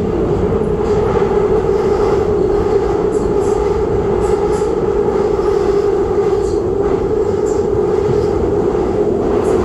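Seoul Metro Line 2 subway train running at speed, heard from inside the car: a steady rumble of wheels and running gear with a constant hum and a few faint ticks.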